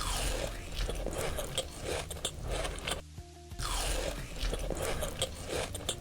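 Loud crunchy biting and chewing, a mukbang eating sound effect, over background music. The crunching plays in two stretches, stopping briefly about three seconds in and starting again about half a second later.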